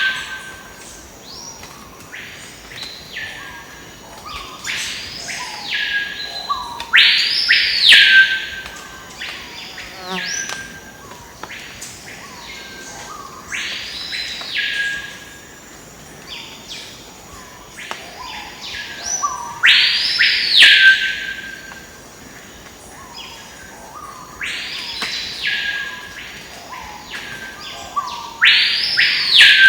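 Rainforest bird calls: a whistled call that rises and falls, repeated every second or two, some calls loud and others fainter. A steady high insect whine runs underneath.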